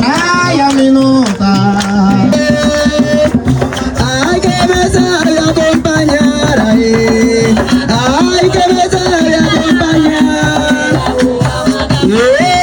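Bullerengue: a sung voice holding long, bending notes over hand-beaten tambor drums keeping a steady, dense rhythm.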